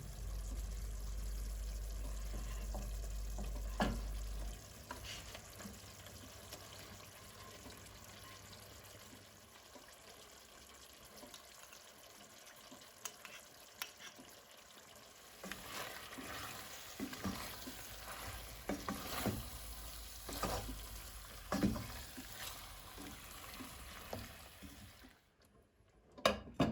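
Food sizzling in a frying pan while it is stirred, with scattered scrapes and knocks of a utensil against the pan, busiest in the second half. A steady low hum runs under the first few seconds, and two sharp knocks come near the end.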